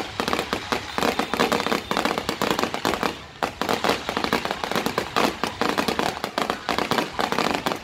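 Fireworks display: aerial shells bursting overhead in rapid, continuous bangs and crackling, with a brief lull about three seconds in.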